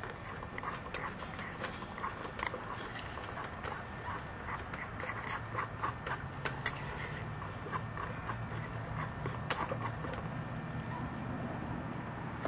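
Wood gas camp stove burning with a steady low rumble, with irregular crackles and clicks of wood in the fire and of the stove being tended.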